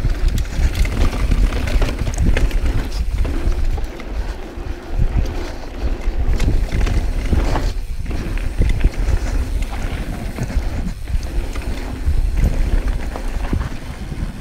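Wind buffeting the camera microphone over the rumble of a Yeti SB6c mountain bike rolling down a dirt singletrack, with a constant scatter of clicks and rattles from the tyres and bike over the rough ground.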